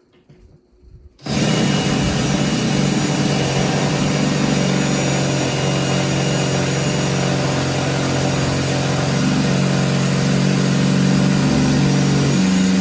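A small electric motor runs steadily at one pitch, starting abruptly about a second in and cutting off at the end, with a slight shift in pitch shortly before it stops.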